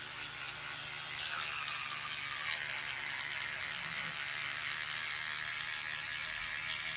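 Electric toothbrush running steadily in the mouth, a continuous buzz muffled by the lips, mixed with wet brushing against the teeth.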